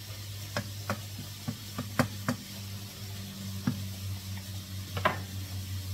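Wooden spatula knocking and scraping against a pot about eight times at an uneven pace, the loudest knock about two seconds in, over the steady sizzle of bacon, onion, garlic and carrots frying in butter.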